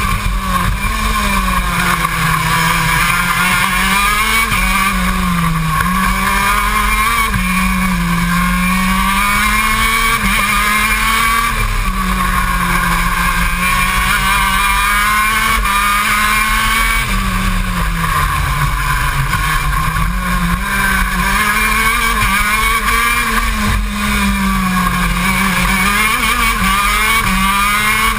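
KZ2 shifter kart's 125 cc two-stroke engine at racing speed, its pitch climbing and falling back again and again as the kart accelerates down straights and slows for corners.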